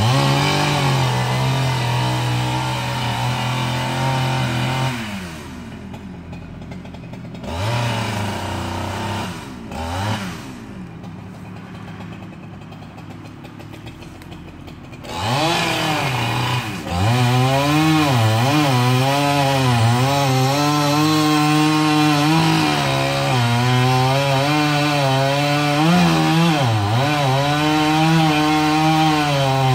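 Gas chainsaw running at full throttle, dropping to idle about five seconds in with a few short throttle blips. It revs back up about fifteen seconds in and runs hard again, its pitch dipping and wavering as the chain cuts into wood.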